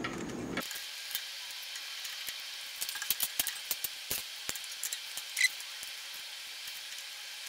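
Light metallic clicks and taps from small steel parts and a hand tool as a band saw's blade guide is unbolted and a bearing blade guide assembly is fitted onto its mount. The clicks come scattered, most of them in a cluster past the middle, with one ringing tick after it, over a faint steady hiss.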